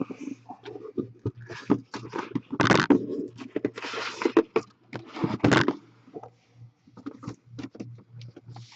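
Irregular scraping, rustling and clicking from objects being handled on a table, loudest in the first six seconds and sparser after, over a faint low hum.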